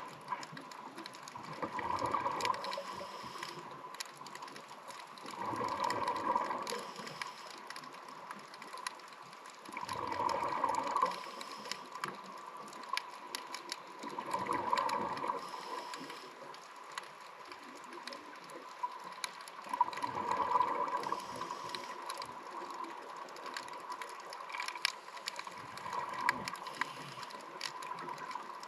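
Scuba regulator breathing heard underwater: six bubbling exhalations, one about every four to five seconds, over a faint bed of crackling clicks and a steady thin whine.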